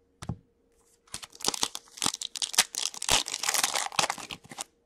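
A foil SP Authentic hockey-card pack torn open by hand. The wrapper crinkles and rips in quick crackly bursts, starting about a second in and lasting about three and a half seconds.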